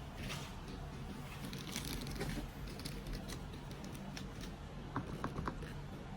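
Light close-up handling noise: faint scratching and rubbing with scattered small clicks, a few together about five seconds in, as an alcohol-soaked cotton swab works at the silicone glue on the splicer's cables and connectors.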